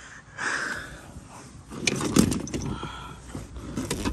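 Hands rummaging on a truck's floor mat among loose tools: rustling and scraping, then from about halfway a run of sharp metal clicks and knocks with a few dull thumps.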